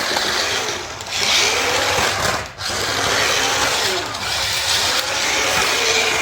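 Small electric motors of remote-control toy bumper cars whirring as they drive, the pitch sliding up and down, with a brief dip about two and a half seconds in.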